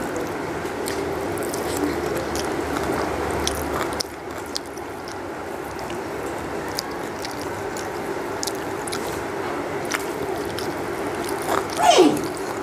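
Fingers mixing rice and curry on a steel plate: light clicks and scrapes against the metal over a steady background hum. Near the end comes a short, loud cry that falls in pitch.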